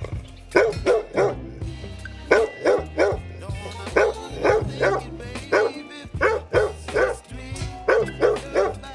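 A dog barking repeatedly in runs of two or three quick barks, over background music.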